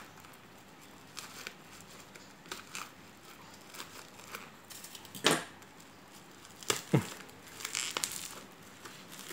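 Packing tape and plastic wrapping on a parcel being cut with a pocket-knife blade and torn open by hand: steady crinkling, with two louder rips about five and seven seconds in.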